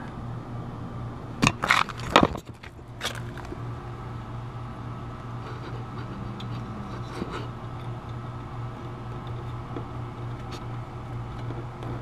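Hand-handling of air conditioner condenser wiring: a few sharp clicks and crackles, about one and a half to three seconds in, as wire connectors are pushed onto terminals, then a few faint ticks. A steady low hum runs underneath.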